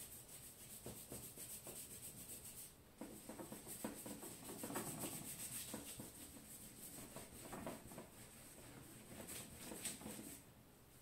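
Wet paintbrush stroked back and forth over paper, laying down a watery wash of poster paint: a soft, repeated rubbing and swishing of the bristles, busiest in the middle.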